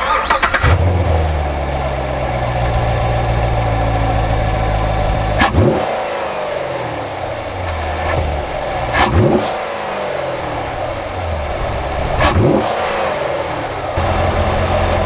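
2019 Chevrolet Corvette Grand Sport's 6.2-litre LT1 pushrod V8, heard from the open engine bay: idling, then blipped three times a few seconds apart, each rev rising sharply and dropping back to idle. Very racy.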